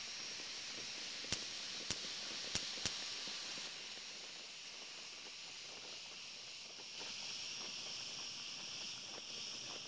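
Distant fireworks going off as four sharp pops in the first three seconds, over a steady high hiss.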